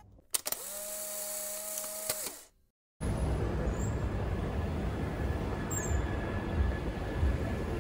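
A brief steady hum of a small motor that spins up and stops, then after a short silence, city street traffic: cars running past with a continuous low rumble.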